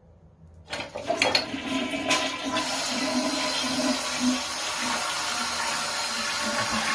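A toilet flushing, set off by a dog nosing the flush on the tank. It starts suddenly with a few clicks, then water rushes steadily through the bowl.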